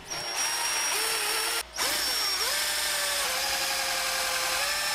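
Cordless drill running a step drill bit through a black plastic project box, in two runs with a short stop about one and a half seconds in. The motor's pitch sags briefly soon after it restarts, then holds steady.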